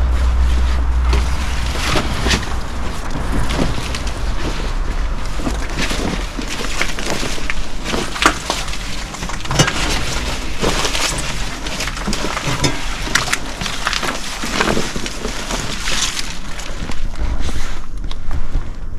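Irregular crunching and sharp cracks of debris, a dozen or more, as someone climbs and steps through, with a low rumble of wind or handling noise on the microphone near the start.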